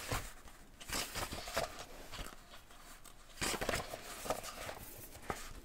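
Pages of a hardcover book being flipped by hand: soft papery rustles and flicks, in clusters about a second in and again around three and a half seconds.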